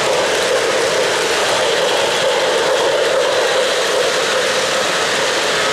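O-gauge three-rail model freight train running close by, a steady noise of its wheels rolling on the track.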